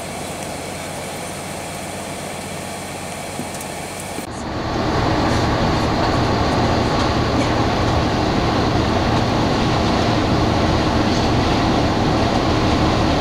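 Steady road noise and engine rumble heard from inside a moving vehicle on a highway, louder after a sudden change about four seconds in; before that, a quieter steady hum.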